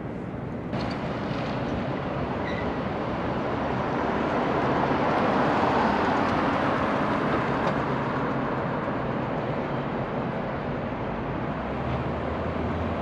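City street traffic noise: a steady wash of passing vehicles that swells to its loudest about midway as one passes close, then eases off.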